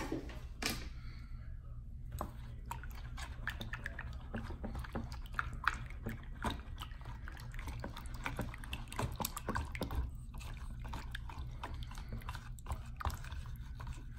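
Wire whisk beating a thin buttermilk batter in a bowl: fast, irregular wet clicks and taps of the wires against the bowl and through the liquid.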